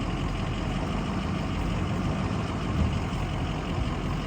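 Pickup truck engine running steadily at low speed.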